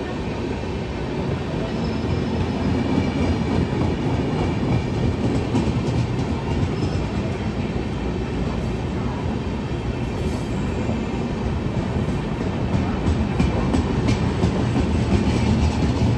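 Indian Railways passenger coaches rolling past a platform: a steady running noise of wheels on rail, growing a little louder after the first few seconds, with repeated clicks as the wheels cross rail joints.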